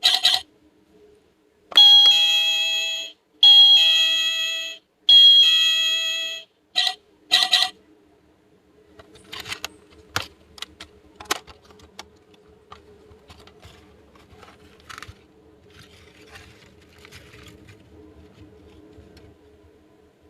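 A battery-powered toy playset's electronic chime, a run of bright beeping notes with three longer ones in the middle, stopping about eight seconds in. After that come light scattered clicks and taps of small plastic toy pieces over a faint steady hum.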